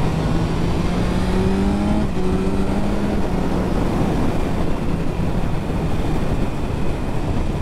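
BMW S1000R's 1000cc inline-four engine accelerating hard, its note climbing and then dropping at an upshift about two seconds in. From about halfway on, heavy wind rush on the on-board microphone at speed mostly covers the engine.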